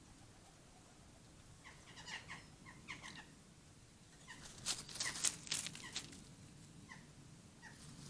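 Magpies calling: short, squeaky, meow-like calls, typical of a juvenile magpie begging, then a louder flurry of harsh, noisy sounds about halfway through, and a few more short calls near the end.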